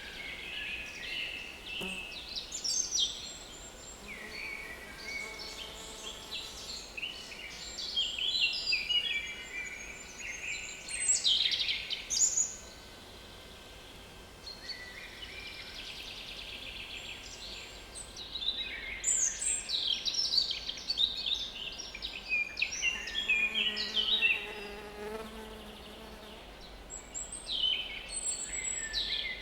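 Small woodland songbirds singing and calling in quick, overlapping phrases, with a flying insect buzzing close to the microphone twice, for several seconds each time.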